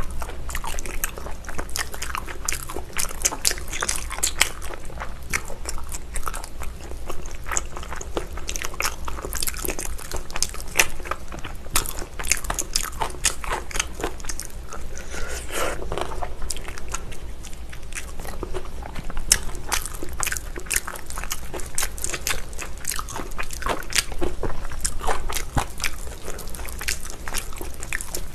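Close-miked eating: biting and chewing spicy braised beef feet, gnawing meat and gelatinous skin off the bone, a dense run of small clicks and smacks with no pause.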